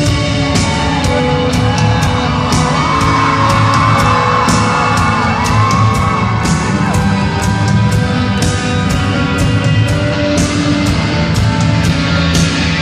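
Live rock band playing at full volume in a large hall: drums with regular cymbal crashes, guitars and bass. A voice sings a wavering melody through the middle stretch.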